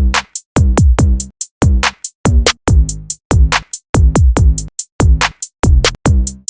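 Electronic music with a drum-machine beat: deep bass notes that slide down in pitch and crisp high hits, chopped into short bursts with sharp gaps between them.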